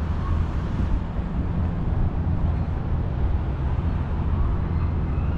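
Steady low rumble of city traffic and vehicle engines.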